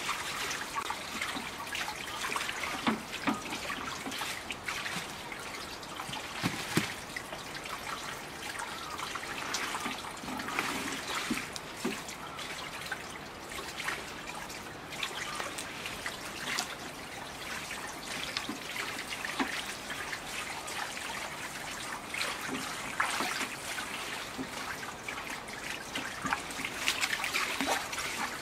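Daikon radishes being washed by hand in a shallow tub of water: irregular splashing and trickling as they are rubbed, turned and lifted in the water.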